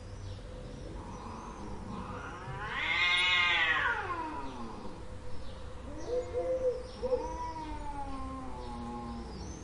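Cat meowing: one long drawn-out meow that rises and then falls in pitch about three seconds in, the loudest call, followed by a few shorter, lower meows.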